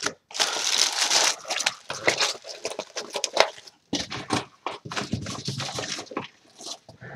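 Hands handling Cardfight!! Vanguard trading cards: a run of rustling, sliding and flicking noises, with a short near-quiet gap just before four seconds in.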